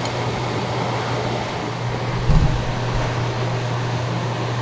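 Steady mechanical fan noise, an even whoosh with a low hum, as from a kitchen fan. There is one brief low thump about halfway through.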